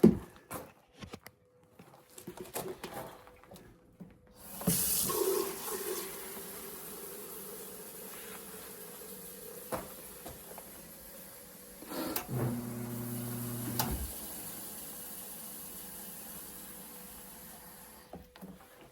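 Water running from a tap into a container, starting about four seconds in and shutting off near the end, after a few light knocks. A short low hum sounds partway through the fill.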